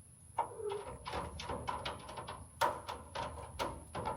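A small stray kitten crunching dry cat food: a quick, irregular run of crisp crunches and clicks, several a second, with one louder crunch about halfway through.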